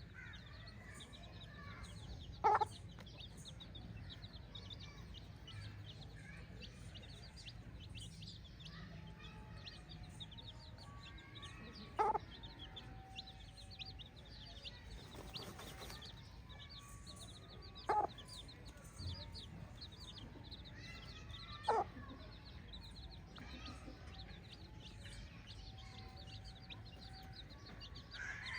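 Free-range chickens calling, with four short, loud calls standing out about 2.5, 12, 18 and 22 seconds in. A rapid high chirping runs underneath throughout.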